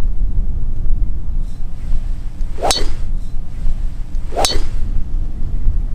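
A driver striking a golf ball off the tee twice, sharp metallic pings about a second and a half apart, each ringing briefly, over steady wind rumble on the microphone.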